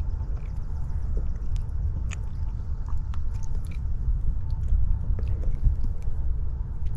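Wind buffeting the microphone as a steady low rumble, with scattered small clicks and rustles from hands pulling fishing line in and handling a hooked sunfish.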